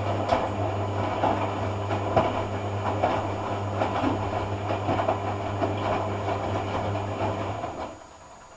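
Hoover AC166 Classica 1200 automatic washing machine turning its drum during a cotton rinse: a steady motor hum with irregular clunks and rattles from the tumbling load. The motor stops suddenly about eight seconds in.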